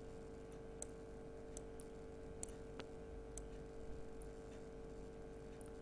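Faint computer mouse clicks, roughly one a second, as the mouse is pressed and released to draw letter strokes on screen, over a steady faint hum.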